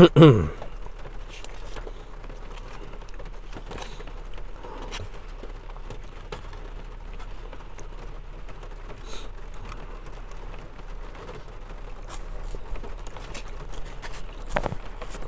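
Eating sounds inside a car in the rain: a plastic fork scraping and clicking in a foam takeout container, with a steady patter of rain on the roof. A short falling hum from the eater at the very start.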